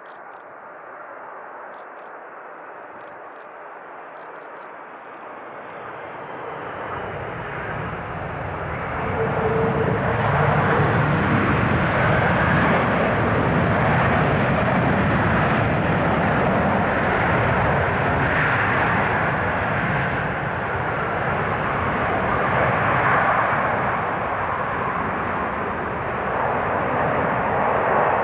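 Boeing 747-400D airliner's four jet engines running during the landing rollout. The rush of engine noise is moderate just after touchdown, swells over a few seconds about a third of the way in, then stays loud and steady.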